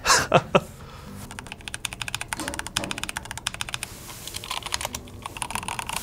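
Fast typing on a mechanical keyboard with linear key switches: a dense, even run of key clacks that starts about a second and a half in and has a brief pause near the middle.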